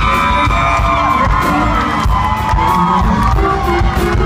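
Live country band playing loud through the PA, with drums, bass and guitar, and an audience cheering and whooping close around the microphone.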